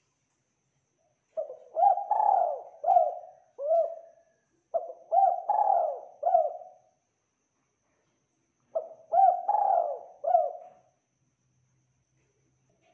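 Spotted dove (tekukur) cooing: three phrases of several deep coos each, the first two close together and the third after a short pause.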